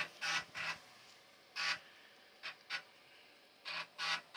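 Commodore Colt's 5.25-inch floppy drive reading the boot disk: about eight short mechanical bursts at uneven intervals as the head seeks, over a faint steady hum. The PC is booting DOS from the floppy because its hard disk is not found.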